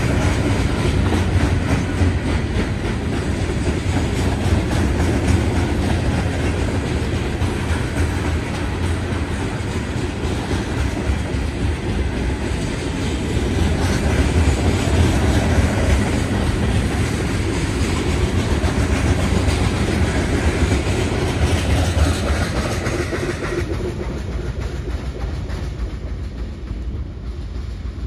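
Loaded coal hopper cars of a freight train rolling past, steel wheels clattering on the rails over a steady low rumble. The sound turns duller near the end.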